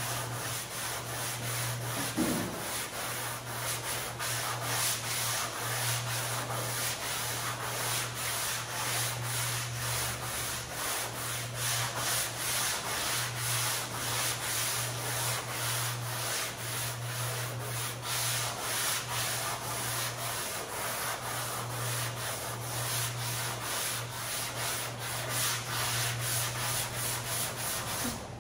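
Hand block-sanding of grey primer on a pickup bed side: rapid, rhythmic back-and-forth strokes of sandpaper on a long sanding block.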